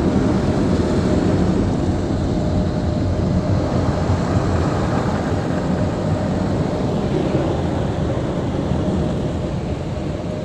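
Automatic car wash blow dryers running: a loud, steady rush of air with a faint steady hum, heard from inside the car as the overhead blower nozzles pass over it. It eases off slightly near the end.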